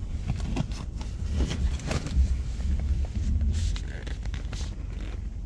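Low, steady rumble of a car's engine and road noise inside the cabin as it creeps in heavy traffic, with irregular clicks and rustles over it.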